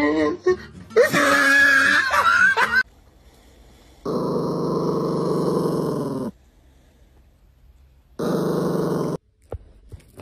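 Small Yorkshire terrier growling: one steady growl of about two seconds, then a shorter growl about two seconds later.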